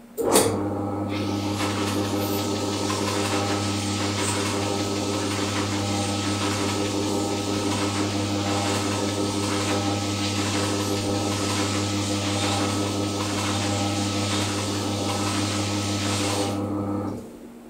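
Bowling ball spinner's electric motor running steadily, with a tan 3M Scotch-Brite pad scouring the spinning ball in a dense, even hiss over the hum. It starts with a click and winds down near the end.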